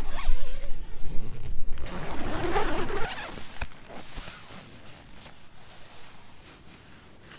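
A tent's door zip being pulled open with the nylon fabric rustling, loud for about three seconds, then dropping to quieter rustling with a single click a little later.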